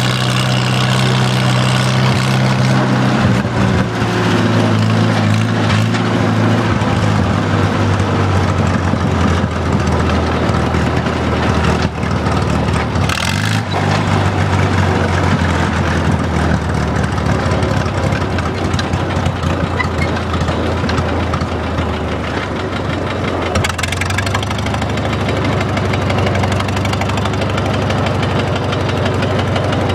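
Farmall H tractor's four-cylinder engine running while the tractor is driven, with a steady exhaust note. The engine note drops in pitch about three seconds in.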